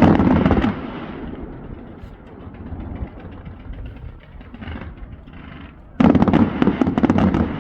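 Fireworks going off: a dense burst of crackling pops at the start, then fainter crackle, and a second loud crackling burst about six seconds in.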